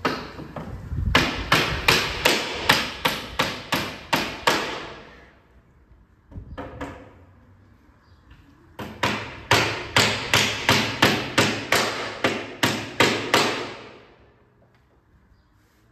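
A claw hammer striking a wooden door-track beam in two runs of quick, even blows, about three a second, with a pause of a few seconds between the runs.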